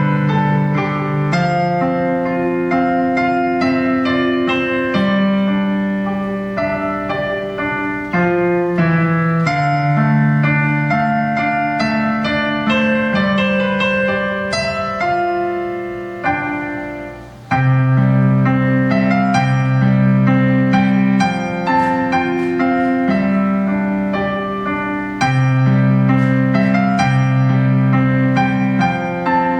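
Piano playing a slow instrumental piece in held chords. The playing fades away briefly a little past the middle, then comes back in loudly.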